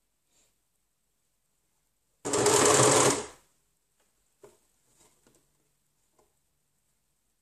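Electric sewing machine stitching one short run of about a second, starting abruptly and running down, while sewing round the neckline of a stretch-fabric dog shirt. A few faint taps and rustles follow as the fabric is repositioned.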